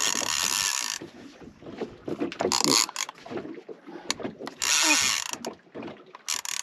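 Overhead trolling reel's drag buzzing as a big hooked fish pulls line off. It runs in bursts: about a second at the start, then shorter runs about two and a half, five and six and a half seconds in, with quieter clicks and knocks between them.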